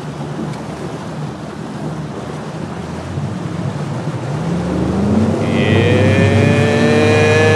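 Mercury Pro XS outboard on a new bass boat, in its break-in, opened to full throttle and trimmed all the way down. A steady rush at first, then about three and a half seconds in the engine's pitch climbs steadily and grows louder as the boat speeds up, levelling off high near the end.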